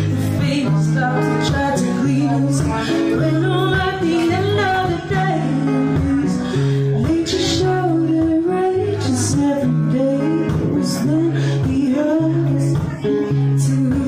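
A woman singing while strumming an acoustic guitar, live through a small PA speaker. The chords change about once a second under the sung melody.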